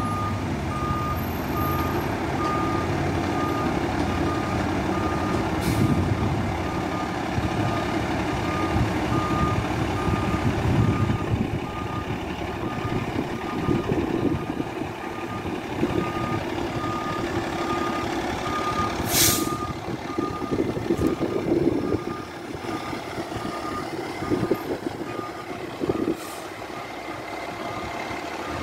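A fire engine's backup alarm beeps repeatedly over its diesel engine running as the truck reverses. About two-thirds of the way through there is a short, sharp air hiss from its air brakes.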